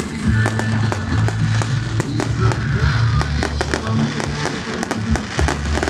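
Fireworks display: aerial shells and lower bursts going off in rapid succession, many sharp bangs and crackles. Loud music with held bass notes plays underneath.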